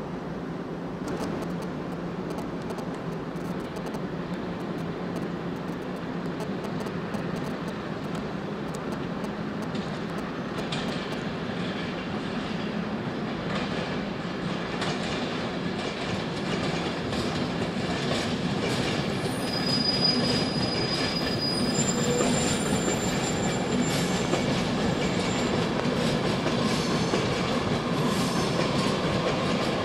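Passenger trains running through the station: first a Class 185 diesel multiple unit, then an East Coast Class 91 electric with Mk4 coaches. Wheels clatter over rail joints and pointwork, with a brief high wheel squeal about two-thirds through. The sound grows louder toward the end as the coaches pass close.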